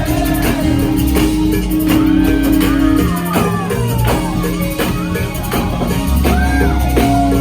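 Live gospel band music: drums and bass under held chords, with a melodic line bending up and down above them.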